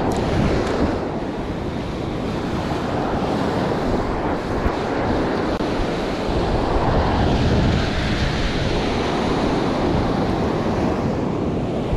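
Surf washing onto a sandy beach, mixed with steady wind rumbling on the microphone.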